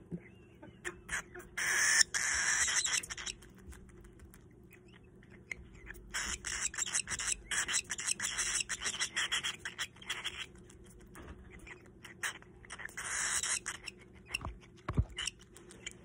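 Baby cockatiel making hissing food-begging calls while being fed formula from a syringe, in three bursts, the longest about four seconds, with small clicks between.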